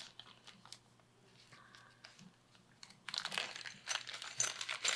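Small plastic parts bag crinkling and rustling as it is handled and opened, starting about three seconds in after a quiet stretch.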